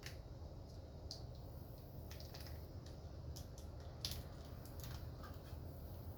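Scattered light clicks and scrapes of small hand tools being handled during a tire plug repair, the sharpest about four seconds in, over a steady low background hum.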